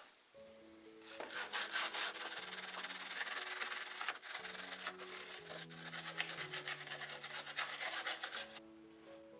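Rapid abrasive rubbing, a dense run of fine scraping strokes that starts about a second in and stops near the end, over soft background music.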